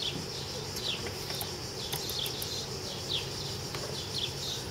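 A bird calling outdoors with short, falling chirps, repeated roughly once or twice a second, over a steady high hiss.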